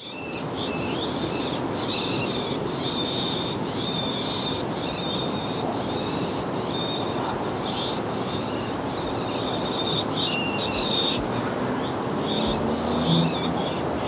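Fledgling red-backed shrike calling: short, harsh, raspy calls repeated several times a second, breaking off briefly near the end before a few more. A steady background hiss runs beneath.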